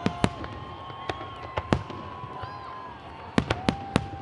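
Fireworks display: aerial shells bursting overhead in a series of sharp bangs, several in the first two seconds and a quick run of four near the end.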